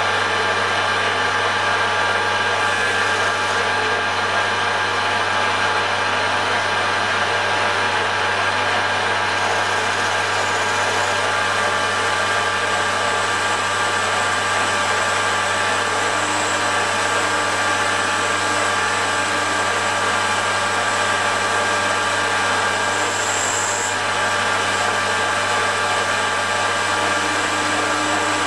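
Metal lathe running steadily under power, with a constant motor and gear hum, taking a 1 mm deep cut along a stub axle.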